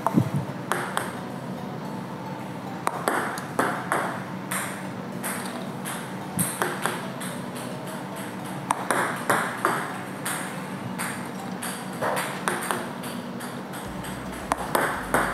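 Table tennis serves being practised: a sharp, crisp click from each reverse pendulum serve as the bat strikes the ball, followed by clicks as the ball bounces on the table. The clicks come in small groups every second or two.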